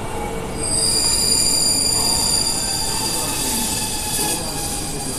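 JR East 651 series electric train coming into the platform and slowing, its wheels rumbling on the track, with a high, steady squeal of brakes and wheels setting in about half a second in.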